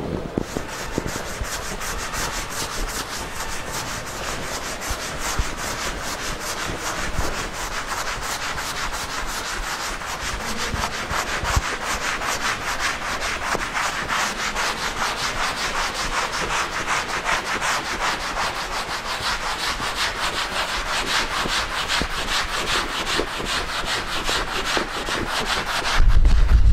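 Chalkboard duster rubbing chalk writing off a blackboard in quick, repeated back-and-forth strokes. A louder low rumble comes in near the end.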